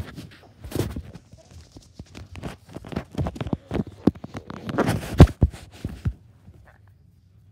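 Handling noise close to the microphone: a quick, irregular run of knocks, taps and rustles as the filming phone is moved about and plush toys are handled on carpet. It stops about six seconds in.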